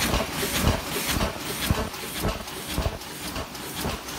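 OC100 paper cup making machine running its cycle: a regular mechanical knock about twice a second over a steady hiss.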